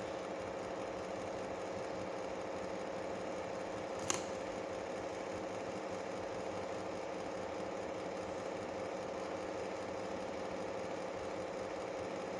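A steady background hum with a constant mid-pitched tone, and one sharp click about four seconds in.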